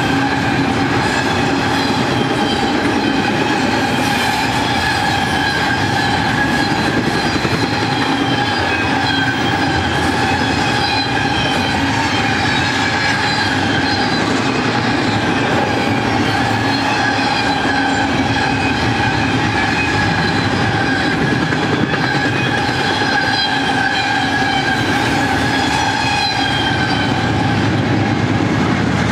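Loaded double-stack container well cars rolling past on a curve: steel wheels squealing against the rail in a steady high ringing tone over the rumble and clatter of the wheels. Near the end a BNSF diesel locomotive at the rear of the train passes, adding a deeper engine rumble.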